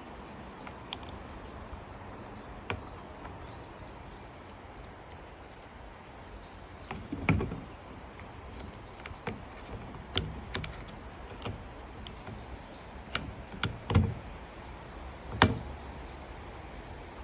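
Scattered clicks and knocks of saw parts and tools being handled on a workbench, with three heavier thumps about seven, fourteen and fifteen seconds in.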